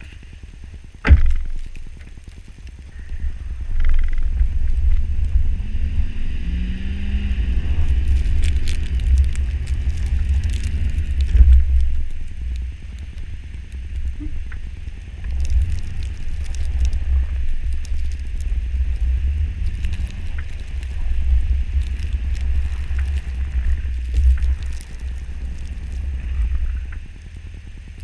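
Lifted Chevrolet Avalanche driving through deep snow: a heavy low rumble with wind buffeting the side-mounted camera. The engine's pitch falls and rises briefly a few seconds in, and there is a sharp knock about a second in.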